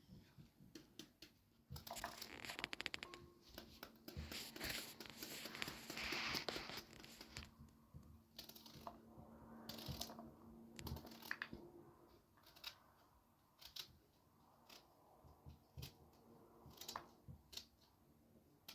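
Faint rustling and scattered light clicks and taps of things being handled, with a few short scraping, tearing-like rushes.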